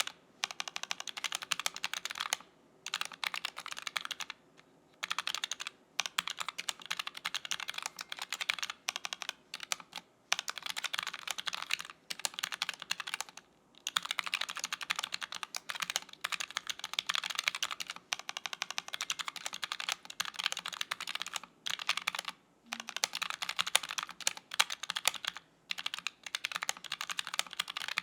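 Typing on a Keychron K3 Retro low-profile mechanical keyboard with Gateron low-profile switches: fast runs of clacking keystrokes in bursts of a few seconds, broken by brief pauses.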